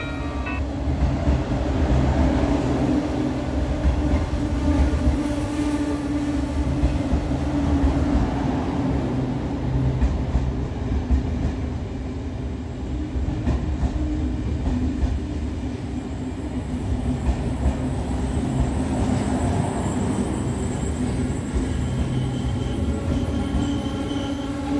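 A train running on the rails: a steady low rumble with a faint hum and scattered light clicks.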